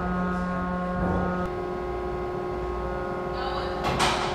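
Steady shipboard machinery hum in an anchor windlass room, made of several constant tones; one low tone drops out about a second and a half in. A short hissing, clattering burst comes just before the end.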